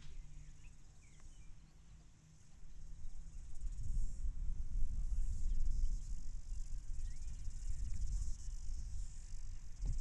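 Steady, high-pitched shrilling of an insect chorus, with a low rumble that swells a couple of seconds in and stays strong.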